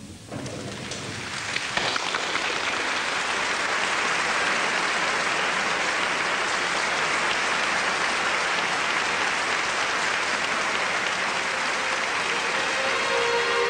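Audience applause, swelling over the first couple of seconds and then holding steady.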